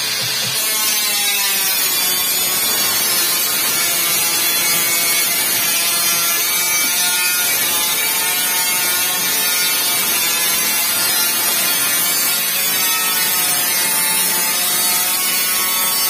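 Small corded electric power tool cutting through a corrugated pre-painted steel roofing sheet, its motor running steadily with a whine that wavers in pitch as the cut loads it.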